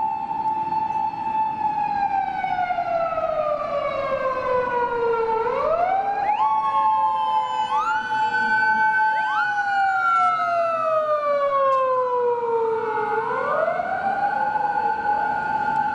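Japanese police siren wailing, a slow rise and fall that holds its high note for a few seconds before sliding down. Around the middle a second, out-of-step wail overlaps it before a single wail returns near the end.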